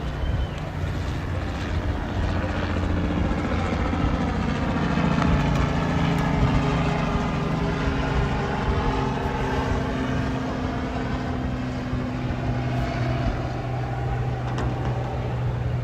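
Steady engine drone of a passing motor over wind noise, swelling a little in the middle as it goes by.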